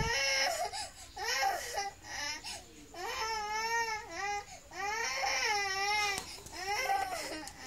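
A young girl crying: a string of drawn-out, wavering wails with short breaks between them.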